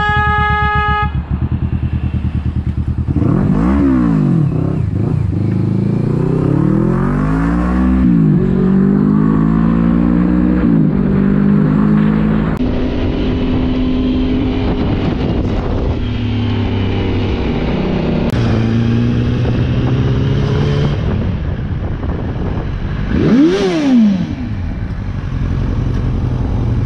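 Motorcycle engines running under the rider, rising and falling in pitch several times as they rev up and ease off, with a sharp rev and drop near the end. A car horn sounds steadily over the first second.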